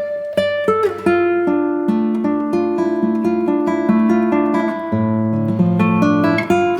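Background music: acoustic guitar, notes plucked one after another in a slow melody.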